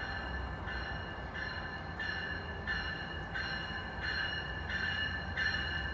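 Warning bell of an approaching GO Transit commuter train ringing in a steady, even beat, about three rings every two seconds, over a low diesel rumble, growing louder near the end as the train draws into the station.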